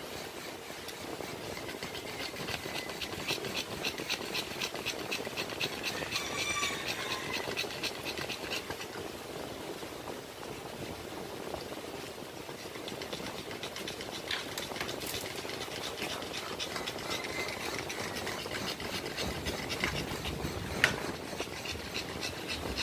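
Pug in labour panting rapidly and steadily, the fast, breathy panting of a whelping bitch. A single sharp knock near the end.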